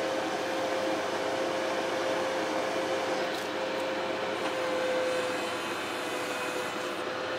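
A Bobcat skid-steer loader's engine running steadily, a constant hum with a steady whine over it.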